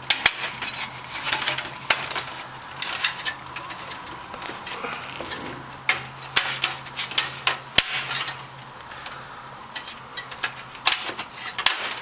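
Stamped sheet-metal I/O shield being pushed and worked into the rear port opening of a steel PC case: irregular metallic clicks, clinks and scraping, with one sharp click about eight seconds in.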